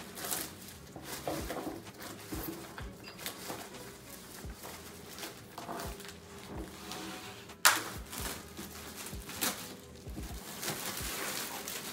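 Plastic wrapping being torn and pulled off a wakeboard, crinkling and rustling unevenly, with one sharp loud crack about two-thirds of the way through.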